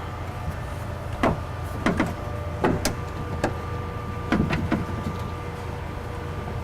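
Intermittent metallic clicks and knocks as a window regulator is handled and bolted into a car door, some in quick pairs, over a steady background hum.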